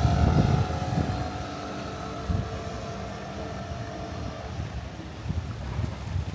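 An engine running and fading away over the first few seconds, with wind gusting on the microphone as a low rumble, strongest near the start.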